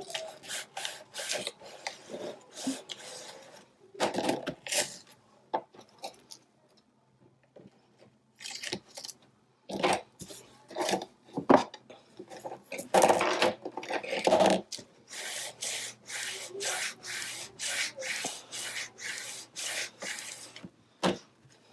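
Brown packing tape being pressed down and rubbed along a cardboard book spine with a bone folder: repeated short rubbing strokes, about two a second in the second half, with a louder stretch of handling in the middle.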